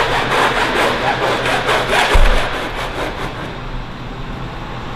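Rapid, rhythmic rasping strokes of a hand tool working sheet metal on a workbench, with a dull thump about two seconds in; the strokes die away about three seconds in, leaving a steady low hum.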